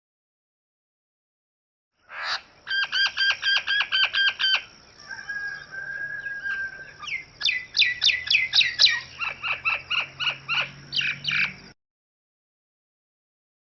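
A recorded bird's calls, starting about two seconds in. First comes a fast run of evenly repeated notes, then a drawn-out note. A string of quick, downward-sweeping notes follows and ends about two seconds before the close.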